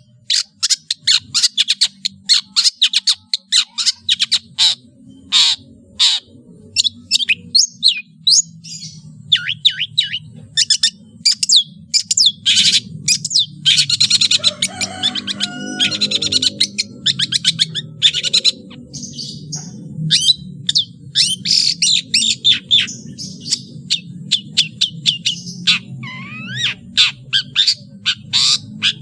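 Long-tailed shrike (cendet) singing a rapid, continuous chattering song of sharp high notes and short sweeps, packed with mimicked calls of other birds. A steady low hum runs underneath.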